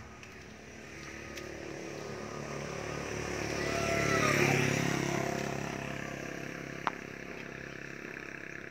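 A road vehicle passing by, growing louder to about four and a half seconds in and then fading away. A single sharp click sounds near seven seconds.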